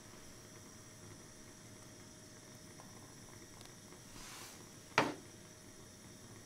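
Melted butter poured from a small ceramic ramekin into a nonstick pan: a brief soft splash about four seconds in, then one sharp knock about a second later.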